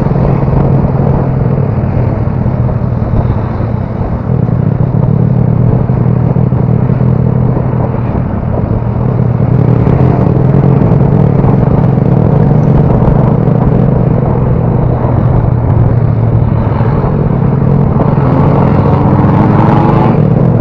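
Motorcycle engine running at a steady cruising speed while riding, its pitch shifting slightly a few times, under a dense rushing noise.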